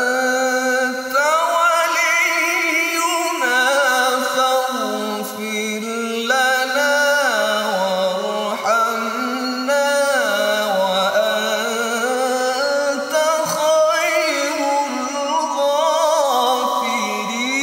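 A male qari reciting the Qur'an in melodic tilawah style: long, held, ornamented phrases whose pitch slides up and down, with a wavering vibrato.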